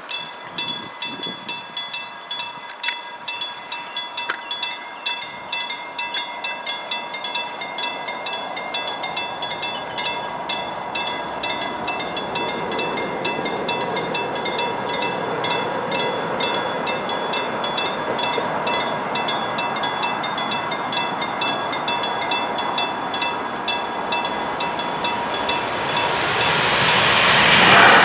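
Level-crossing warning bell ringing in fast, even strokes while an electric VR InterCity train with double-deck coaches approaches. The rumble of the train grows steadily louder and swells near the end as the locomotive reaches the crossing.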